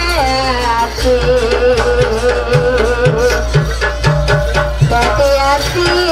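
Live traditional barong dance accompaniment. Hand drums beat under a melody line whose pitch bends and wavers, over a steady low band.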